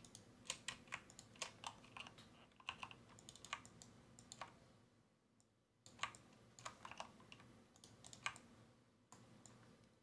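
Faint clicking of a computer keyboard and mouse: shortcut keys and mouse buttons pressed in quick irregular runs, with a pause of about a second halfway through.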